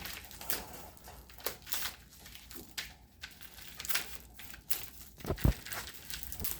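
Plastic wrapping of a frozen pizza crinkling and tearing in irregular rustles as it is cut open with scissors and pulled off, with one sharp thump near the end.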